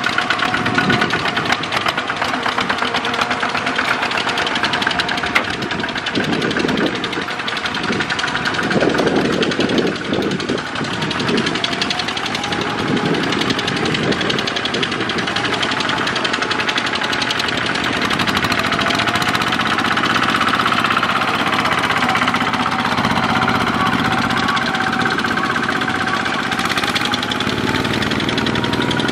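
Single-cylinder diesel engines of two-wheel hand tractors pulling loaded trailers, chugging steadily with a fast, even knock.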